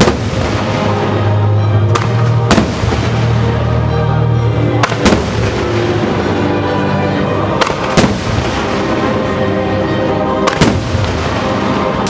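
Firework shells bursting with sharp bangs, roughly one every two to three seconds and sometimes two in quick succession, over loud music with a held bass line.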